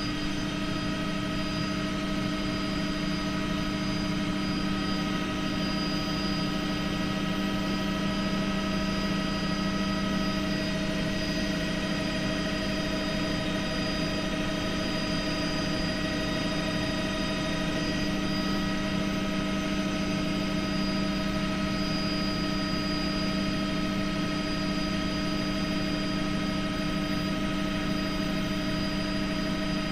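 Helicopter engine and rotors heard from inside the cabin in level flight: a steady drone with several constant whining tones over it.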